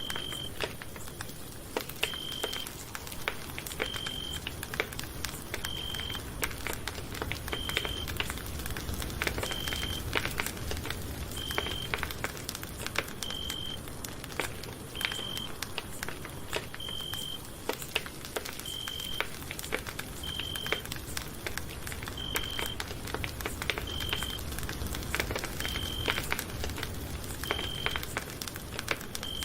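Campfire crackling and popping over a low steady rumble, with many sharp snaps. A short high-pitched electronic beep repeats about every two seconds throughout.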